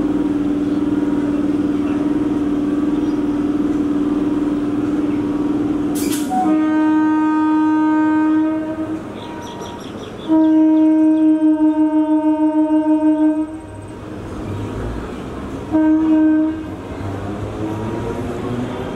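Electric multiple-unit local train passing, sounding its horn three times: a blast about six seconds in, a longer wavering blast about ten seconds in, and a short blast near sixteen seconds. A steady low drone runs under the first six seconds, and a rising whine comes in near the end.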